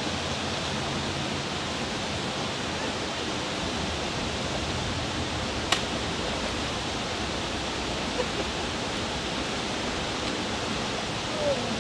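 Steady rush of flowing water through the culvert, with one sharp click about halfway through.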